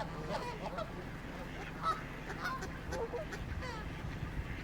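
Geese honking in the background: scattered short calls over a low, steady hum.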